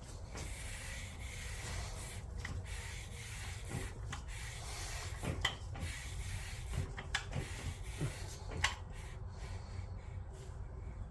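Hands working on engine parts: rubbing and scraping, with a few sharp clicks and knocks in the second half.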